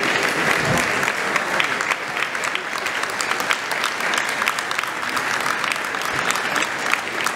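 Audience applauding: steady, dense hand clapping.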